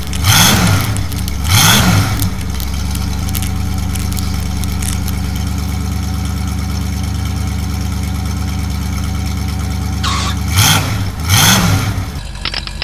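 Monster truck engine sound effect running steadily at idle, revved up and back down in quick blips twice near the start and twice near the end.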